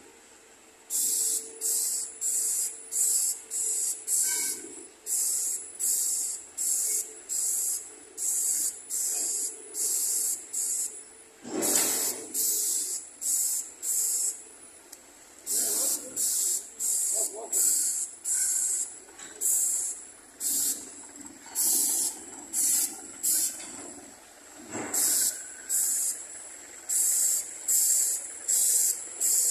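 Airless paint sprayer's gun hissing as it atomises epoxy paint, in short repeated bursts with brief gaps between them, each burst carrying a thin high whistle.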